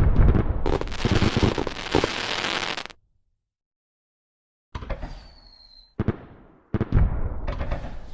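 Fireworks sound effect: dense, rapid bangs and crackling that cut off abruptly to dead silence about three seconds in. After a pause of nearly two seconds, separate sharp bangs with fading tails follow, along with a short whistle.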